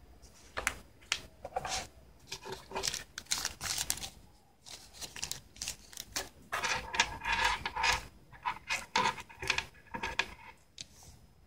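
Hands handling cardboard box pieces and a small plastic bag of spare ear tips: a string of rustles, crinkles and light clicks, busiest in the middle and dying away near the end.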